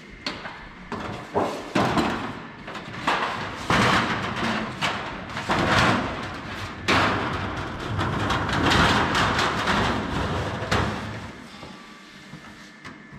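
A large sheet of coated sheet metal being handled and laid out on a long machine bed: scraping, flexing rustles and several sharp thumps and knocks, dying down about eleven seconds in.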